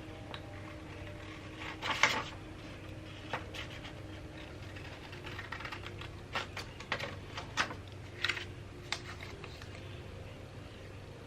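Hands handling small objects at a table: scattered light taps, clicks and rustles, the loudest about two seconds in and a quick run of smaller ones in the second half, over a faint steady hum.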